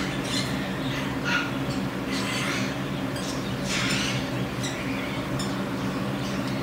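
Baby marmoset making short, high-pitched squeaks, scattered about once a second, over a steady low hum.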